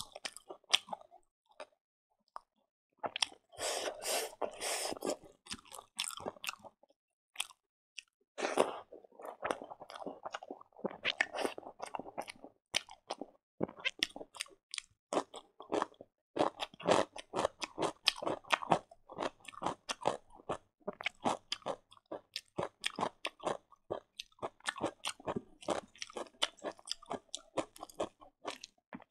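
Close-up chewing and crunching of a mouthful of food, with many short sharp crunches and wet mouth clicks: rice mixed with cooked greens and a bite of fresh cucumber, eaten by hand.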